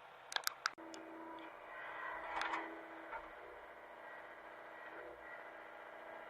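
Hitachi mini excavator's engine running steadily, with a few sharp clicks under a second in and a louder clatter about two and a half seconds in.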